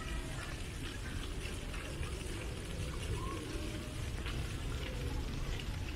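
Ornamental fountain's vertical water jet falling back into its stone basin: a steady splashing, with faint distant voices.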